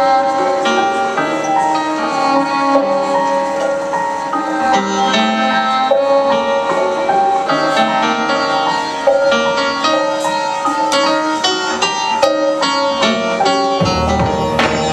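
Grand piano and cello playing together live: moving piano notes over a long held note. About fourteen seconds in, deep low notes come in underneath.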